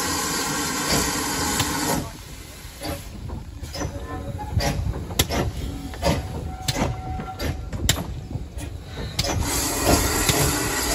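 GWR pannier tank No. 1369, a small 0-6-0 tank engine, hisses loudly with steam from its cylinder drain cocks as it moves off. For several seconds the hiss drops away and a string of sharp, irregular clanks and chuffs is heard from the slowly moving engine. Near the end a loud hiss of steam returns.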